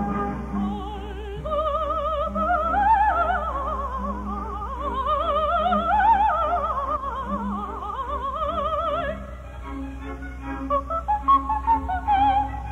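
A soprano singing opera with a wide vibrato over an orchestra, climbing to high held notes around the middle. From about ten seconds in, the line breaks into short, detached high notes.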